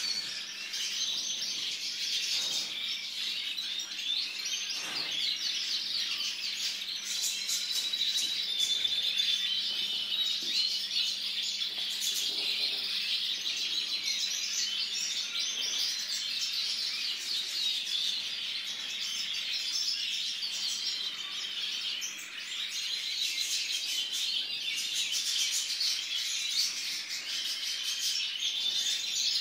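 Caged songbirds singing a continuous, dense twittering warble with many quick trills and chirps, unbroken throughout.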